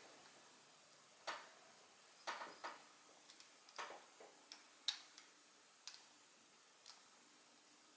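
Faint, irregular small clicks and taps from a T8 Torx driver and a folding knife's metal parts being handled while the pivot screw is tightened, about ten in all and spaced unevenly.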